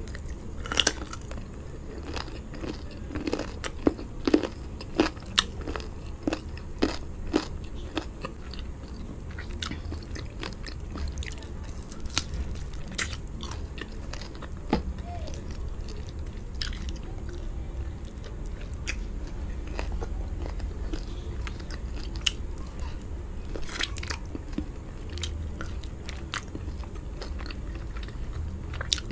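Close-miked chewing and lip-smacking of a person eating chicken drumstick and rice with palava sauce by hand. A quick run of loud smacks comes in the first several seconds, and the smacks grow sparser after that.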